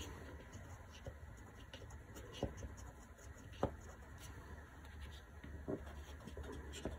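Watercolor crayon scratching faintly across textured watercolor paper in short strokes, with a couple of light taps of the crayon near the middle.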